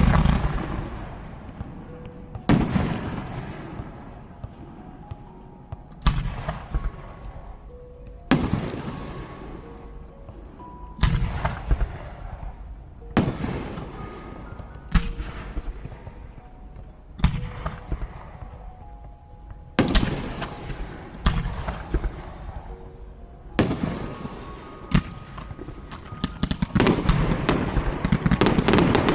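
Fireworks display: aerial shells bursting one after another, about every two seconds, each a sharp bang with a fading rumble. Over the last few seconds the bursts come in a rapid, continuous barrage.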